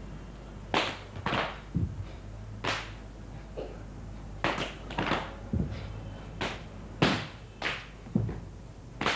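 About a dozen sharp slaps and thuds in uneven succession, several with a deep thump beneath, from performers moving and striking on a stage.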